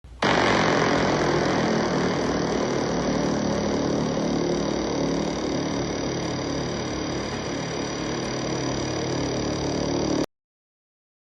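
A steady, dense drone with several held tones, presented as the sound of one of the planets. It starts abruptly and cuts off suddenly about ten seconds in.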